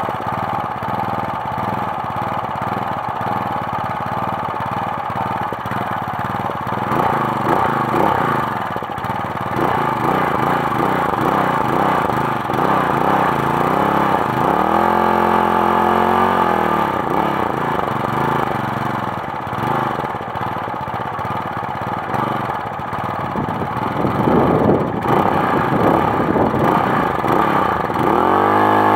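Briggs & Stratton 375 Sprint single-cylinder four-stroke mower engine running steadily, revved up and back down about halfway through and revved up again near the end.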